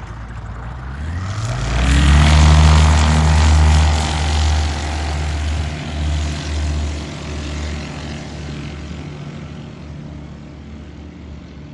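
Light propeller airplane's piston engine at high power passing close. It swells over the first two seconds, is loudest two to four seconds in, then fades steadily.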